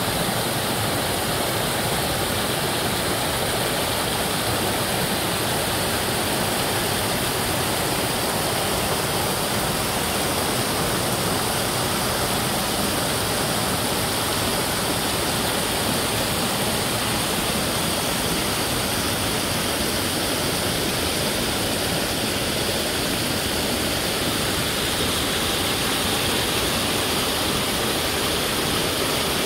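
Small rocky stream rushing over low rock ledges in shallow cascades: a steady, even rush of splashing water.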